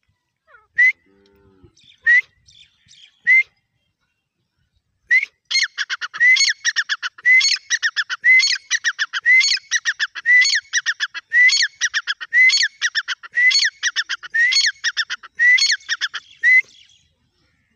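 Francolin (dakhni teetar) calling: three single rising calls, then after a short pause a long run of loud repeated call phrases, about one phrase a second, which stops near the end.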